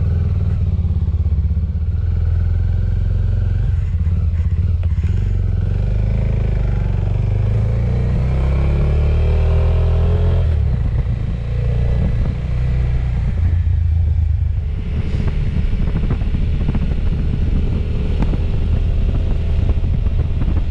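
A small Suzuki motorcycle's engine pulls away and runs along the road under way. Its pitch climbs as it revs up, then drops at gear changes about ten and fourteen seconds in.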